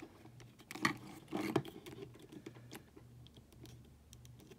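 Small clicks and rubbing of a plastic action figure handled by hand, its joints and jaw being worked, with two louder clicks about a second and a second and a half in.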